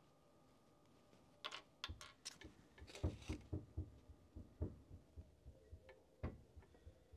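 Irregular light clicks and soft knocks of hands handling a small plastic UV resin bottle and a fishing rod tip: the bottle being uncapped and its nozzle brought to the rod. They start about a second and a half in and come scattered and uneven until near the end.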